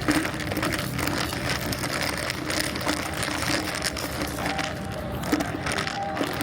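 Café ambience: background chatter with frequent small clicks and clatter.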